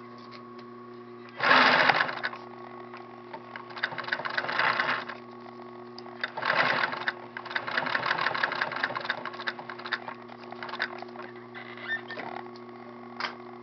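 Sewing machine stitching hook-and-loop (velcro) tape onto a fabric panel, running in short spurts of rapid needle strokes. The loudest spurt comes about a second and a half in.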